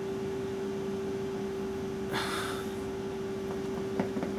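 Steady room hum, with one sharp breath out through the nose about two seconds in and a few light clicks and rustles near the end as someone moves.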